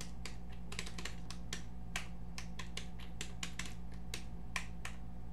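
Typing on a computer keyboard: irregular key clicks, about four or five a second, over a steady low hum.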